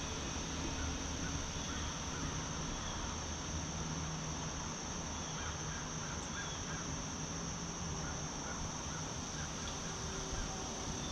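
Crows cawing now and then over a steady rush of wind, with a constant high-pitched drone underneath.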